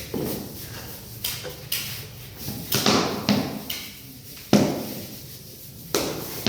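A run of irregular sharp knocks and thuds, about half a dozen, from SPC flooring work: planks being knocked into place.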